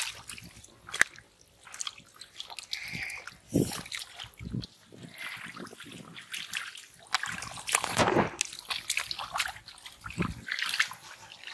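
Hands groping through thick mud and shallow water, squelching and splashing in irregular bursts.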